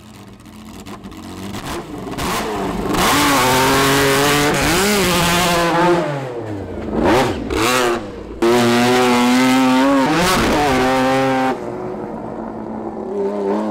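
Lancia Stratos HF rally car's Ferrari Dino V6 engine revving hard as the car accelerates on loose gravel. The pitch climbs and drops several times with gear changes and lifts, then eases off and falls away near the end.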